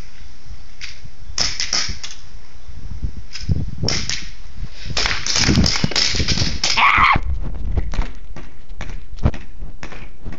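Airsoft guns firing single semi-auto shots, sharp irregular pops coming thick and fast in the middle of the stretch, over low rumbling handling and movement noise.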